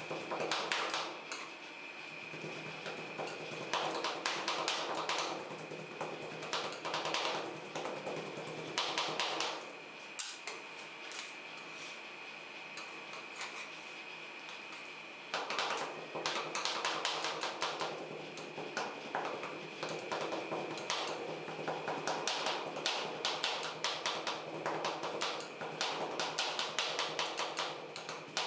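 Two metal spatulas rapidly chopping and scraping ice cream on the steel cold plate of a rolled-ice-cream machine: a fast clatter of metal taps in bursts, with a quieter stretch of several seconds near the middle.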